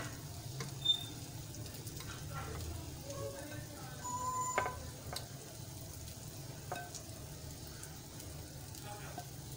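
Heart-shaped French toast, bread soaked in egg and milk, frying in oil in a flat pan: a steady sizzle. A few light clicks and taps come through, the sharpest about a second in.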